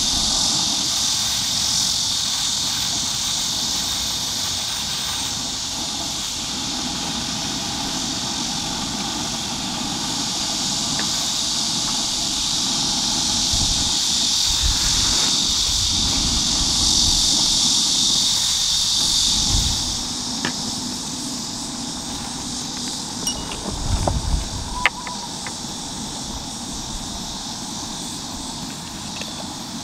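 Loud insect chorus, a steady high-pitched drone that swells and then drops off sharply about two-thirds of the way through, over a low rumble. It drowns out the eating. A few light clicks and clinks follow the drop.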